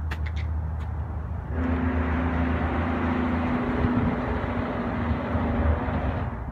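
Highway traffic going by: a steady low rumble, with a louder vehicle's engine drone and tyre noise rising about a second and a half in and falling away near the end.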